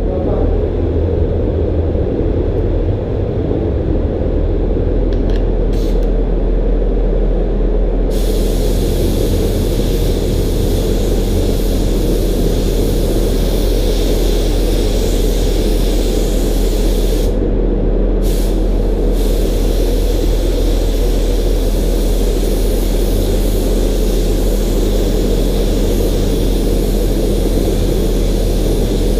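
DeVilbiss gravity-feed spray gun hissing as compressed air atomises and sprays the coating, starting about eight seconds in and stopping briefly about ten seconds later, over a steady low hum.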